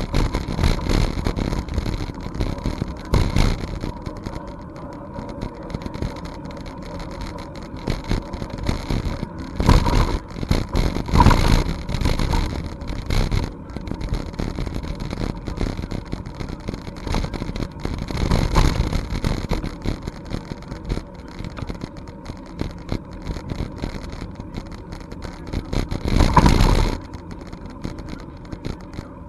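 Wind rumbling on the microphone of a camera carried along on a moving bicycle, swelling in several louder gusts.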